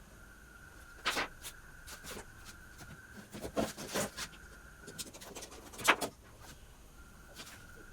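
Scattered knocks and clatters of objects being handled and set down, the loudest about six seconds in, over a faint steady high tone that breaks off for about two seconds after that knock.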